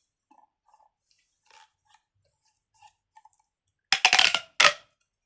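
Corrugated plastic pop tubes being handled: faint clicks and taps at first, then about four seconds in a loud rapid run of ratcheting clicks as a tube's ridges pop, followed by a second short burst.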